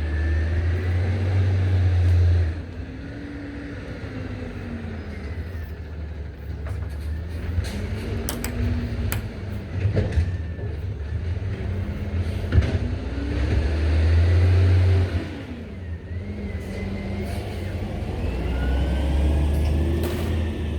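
Motor traffic passing, with a low rumble that swells three times and engine pitches slowly rising and falling. A few sharp clicks and knocks sound in the middle.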